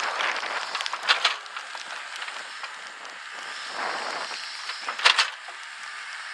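Mini excavator bucket working loose soil and stones: dirt crunching and crumbling, with two sharp knocks, about a second in and again about five seconds in.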